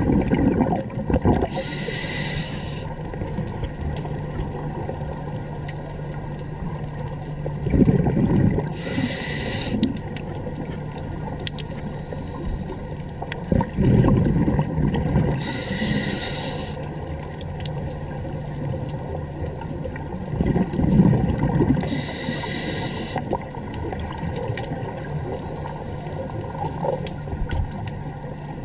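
Scuba diver breathing through a regulator underwater: four slow breath cycles, each a hiss of about a second as air is drawn through the regulator and a rumble of exhaled bubbles, with a steady low hum underneath.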